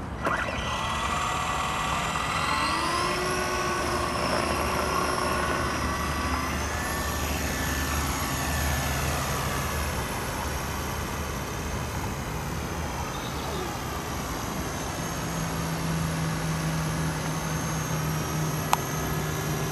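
Radio-controlled model helicopter's motor and rotor starting up: a whine that climbs in pitch over the first several seconds as the rotor spins up, then holds steady with a slight waver in flight. One sharp click near the end.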